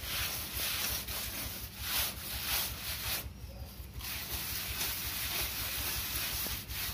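Hand plastering float rubbing over fresh cement-sand plaster on a wall edge, a scraping hiss in repeated strokes with a short pause about three seconds in, as the plaster is pressed in and smoothed.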